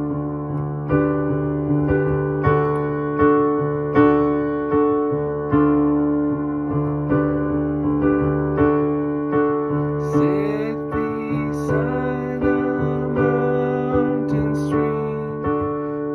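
Instrumental keyboard music: an electric piano or piano playing sustained notes and chords, struck again about every three-quarters of a second, with bright high sounds and short sliding notes joining about ten seconds in.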